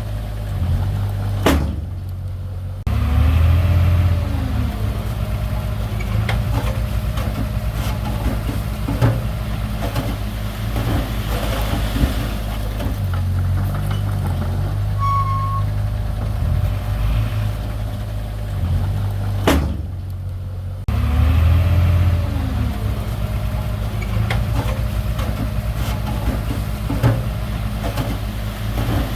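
Diesel engine of heavy earthmoving machinery running continuously, its pitch shifting up and down with load, with a couple of sharp metallic knocks.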